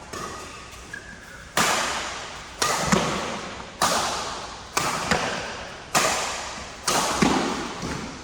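Badminton rally: a shuttlecock struck back and forth by rackets about once a second. Each hit is a sharp crack that rings out and fades in the reverberant hall, with some quicker double knocks.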